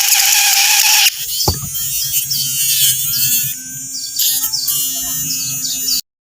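A small DC motor running with a loud, harsh whir that cuts off suddenly about a second in; a quieter sound of steady and wavering tones follows.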